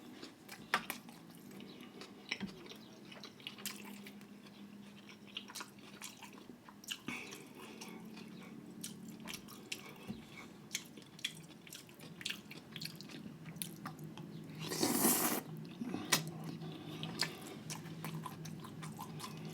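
Close-miked chewing and biting of food: a run of wet mouth clicks, smacks and crunches, with one louder noisy burst about fifteen seconds in.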